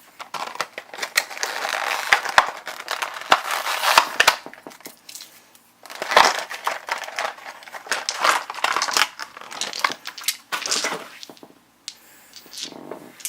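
Crinkling and rustling of plastic packaging as the game's dice are unwrapped and handled, with many sharp clicks of dice knocking together, in two long runs with a short pause about halfway.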